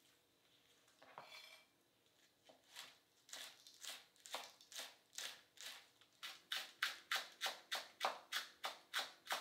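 Kitchen knife slicing green onions on a cutting board: a steady run of crisp chops against the board, about two or three a second, growing louder and a little quicker past the middle.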